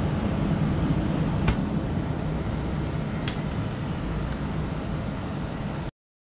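Steady low rumbling background noise with two light clicks a little under two seconds apart. It cuts off suddenly near the end.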